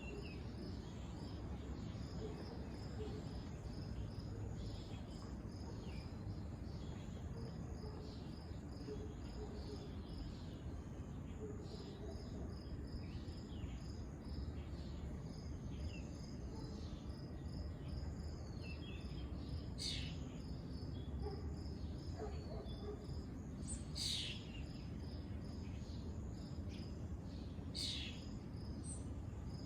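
Crickets chirping in a steady, evenly pulsing rhythm over a low background rumble, with three louder sharp calls in the last third.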